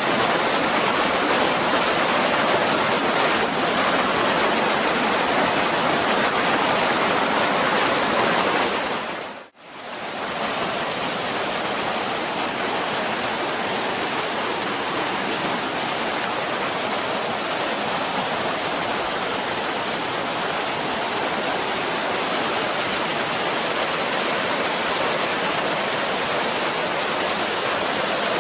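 Small river's water rushing steadily. It cuts out briefly about a third of the way in and comes back a little softer.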